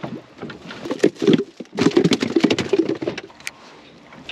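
A speckled trout flopping and thrashing: a quick, irregular patter of slaps that starts about a second in and stops after about two seconds.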